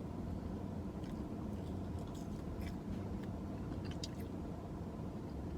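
Close-up chewing of a crispy breaded spicy chicken nugget, with a few short crunches and mouth clicks over a steady low hum.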